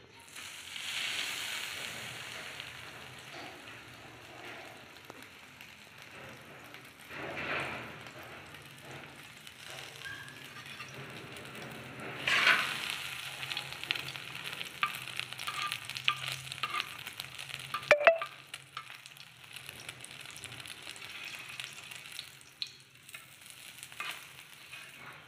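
Breadcrumb-coated potato kebabs sizzling and crackling as they fry on a flat iron tawa, with a few sharp clicks of a metal spatula and tongs against the pan.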